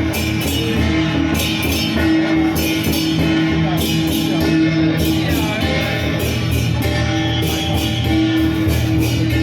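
Music with singing and a steady beat, loud and continuous.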